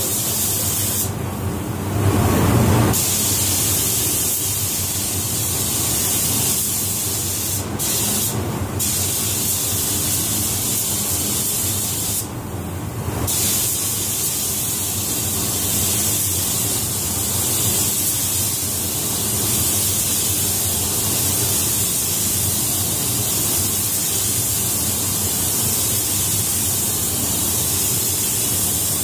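Gravity-feed automotive spray gun hissing steadily while laying down a second coat of clearcoat. The hiss breaks off briefly a few times between passes.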